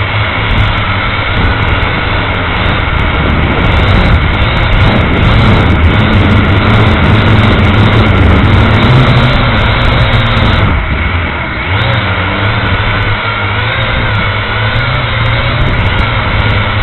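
A small drone's motors and propellers heard from its own on-board camera: a loud, steady buzzing hum with several held pitches. It eases briefly about eleven seconds in, then comes back up, as the throttle changes.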